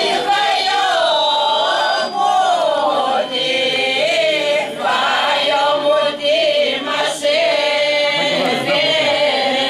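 Mixed choir of men and women singing a traditional Greek Palm Sunday song without instruments, the melody carried in phrases broken by short breaths.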